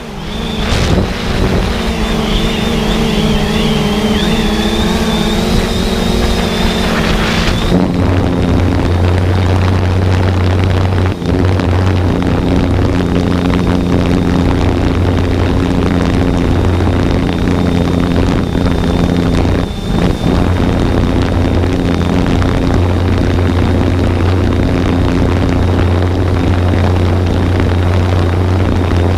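Quadcopter drone's motors and propellers whirring steadily, with a wavering high whine in the first part; the sound changes abruptly about eight seconds in and then runs on as a steady low hum.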